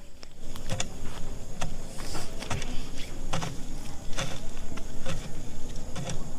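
Irregular light rustles and crackles among leafy field plants, one or two short strokes a second, typical of someone moving through the undergrowth.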